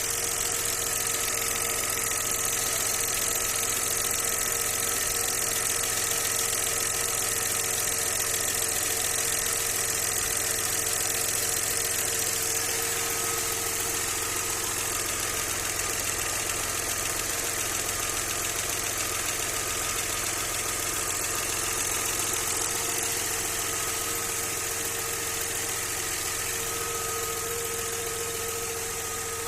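Audi 100 C4's 2.6-litre V6 engine idling steadily, with a constant whine over the running sound; the owner is trying to pin down a knock from both cylinder heads that he suspects is hydraulic lifters, spun bearings or a connecting rod.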